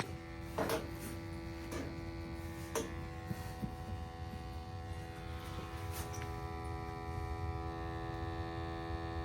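Steady electric hum and buzz of a combustion analyzer's sample pump, over the low rumble of a gas water heater's burner firing, with a few light clicks.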